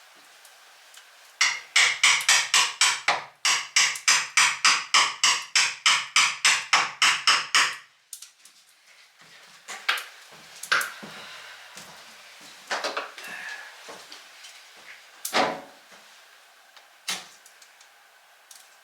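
A hammer striking in a fast, even series of sharp taps, about five a second for some six seconds, followed by a few scattered single knocks.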